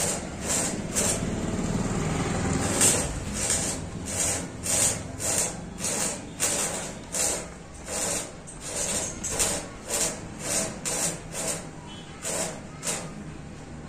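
A hand tool scraping or rasping in even, repeated strokes, about one and a half a second, over a low steady rumble in the first couple of seconds.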